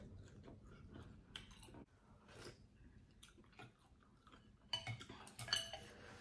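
A person quietly chewing a mouthful of pho, with faint soft mouth clicks. Near the end comes a short burst of sharp clicks with brief ringing, like eating utensils clinking against the bowl.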